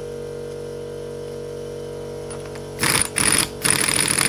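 A power tool running in three short bursts starting about three seconds in, the last and longest about a second, driving the screw of a homemade coil-spring compressor as it squeezes a car coil spring. A steady hum sits underneath.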